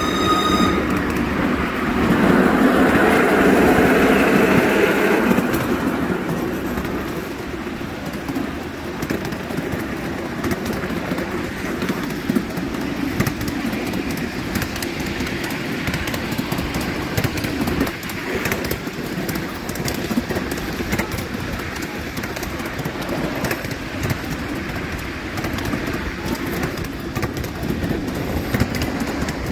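Miniature railway train running along its track, heard from on board: a steady rumble of wheels and carriages, louder for a few seconds shortly after the start. A high wheel squeal dies away within the first second.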